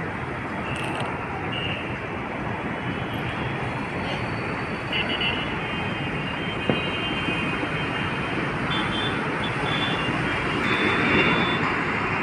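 Steady wash of city road traffic noise, with a few faint high-pitched tones near the middle and toward the end.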